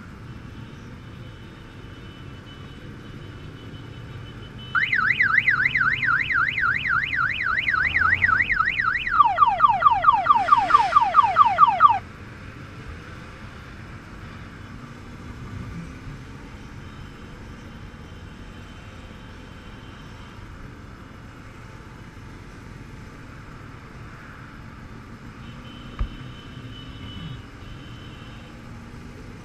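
An electronic siren sounds for about seven seconds. It starts about five seconds in as a fast rising-and-falling yelp, about four sweeps a second, then switches to a faster, lower sweep and cuts off suddenly. Behind it is the steady running of a motorcycle in slow traffic, with a single knock near the end.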